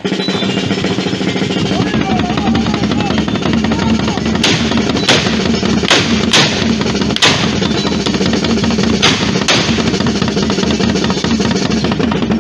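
Trabucos, hand-held gunpowder blunderbusses, firing about seven sharp shots starting about four seconds in, over loud band music with a drum beat.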